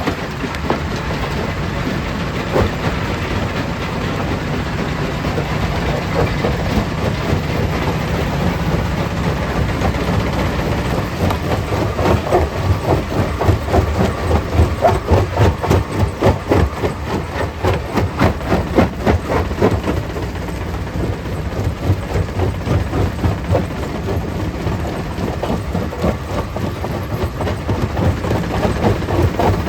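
Stone crusher machine running under load, with a steady low mechanical drone. For a stretch in the middle, rock being crushed gives a run of rapid, regular clattering knocks, which then ease back to the steady running sound.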